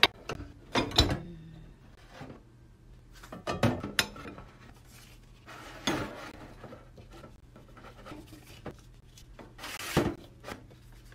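Ceramic plates being handled, set down and slid on a stainless steel counter: a few scattered knocks and scrapes with quiet between, the loudest about a second in and again near the end.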